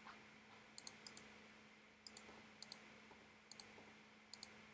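Sharp clicks of a computer mouse and keyboard being worked, coming in pairs and small clusters about once a second, over a faint steady hum.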